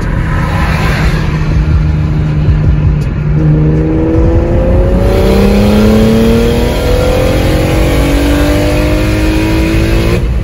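A BMW 335is's 3.0-litre N54 straight-six, converted to a Precision 6266 single turbo, heard from inside the cabin. It runs at a steady cruise, then from about three seconds in accelerates with its engine note rising steadily in pitch.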